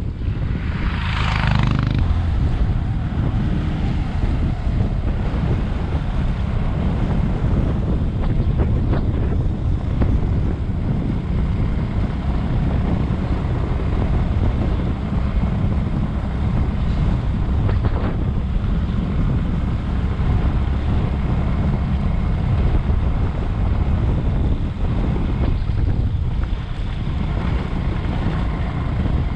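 Bajaj Avenger 220 motorcycle on the move, its running drowned in a steady heavy rumble of wind buffeting the microphone. A brief higher rush of noise comes about a second in.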